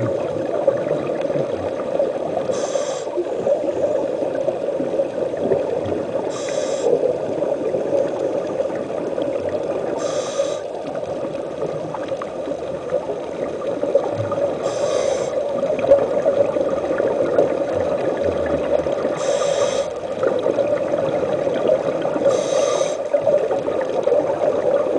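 Scuba diver breathing through a regulator underwater: six bursts of exhaled bubbles, one roughly every four seconds, over a steady underwater hum.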